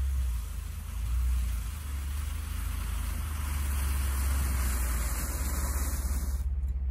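Ford F-150 pickup idling with a steady low exhaust rumble. A rushing hiss builds over several seconds and then cuts off suddenly near the end.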